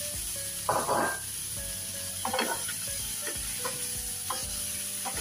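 Tofu and vegetables sizzling in hot oil in a pan on high heat, stir-fried with a spatula. A loud scrape comes about a second in, then about five shorter stirring strokes.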